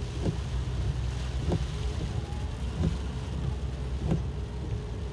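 Steady road and engine rumble inside a moving car, with the windshield wipers sweeping about every second and a quarter, each pass marked by a short knock.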